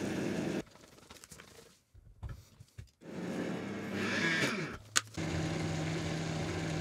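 Personal blender chopping fresh chillies, running in two short pulses with a pause between; the second pulse winds down with a falling pitch. A sharp click follows, then a steady low hum.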